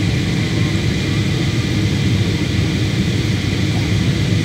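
Steady low cabin noise of a jet airliner on its descent to land, the engines and airflow heard from inside the passenger cabin.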